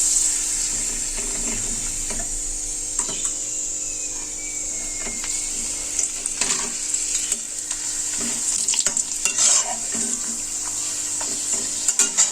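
Papad frying in hot oil: a steady sizzle, with scattered clicks and scrapes of a utensil in the pan.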